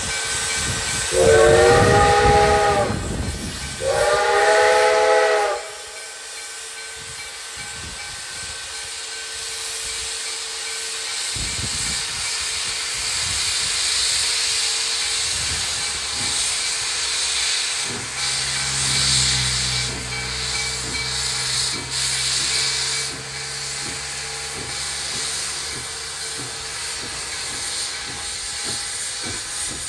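Steam locomotive No. 332 sounds two blasts on its chime whistle near the start, each about a second and a half, a chord of several notes. Then steam hisses steadily as the engine works past. A low rumble with irregular knocks from the running gear comes in later.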